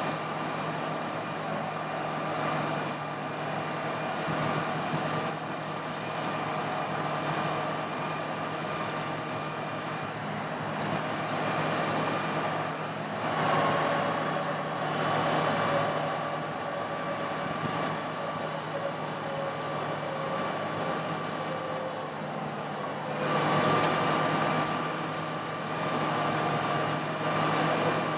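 Dodge 5500 bucket truck idling with its PTO engaged, a steady hum and whine from the running truck and the hydraulics of the Altec AT40M boom as it is lowered and retracted. The sound swells twice, about halfway through and again near the end.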